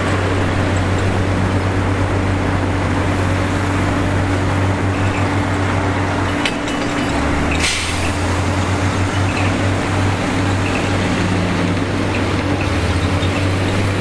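Heavy earthmoving diesel engine running steadily with a low drone. Its pitch dips briefly a little before halfway, and a short sharp hiss comes just after.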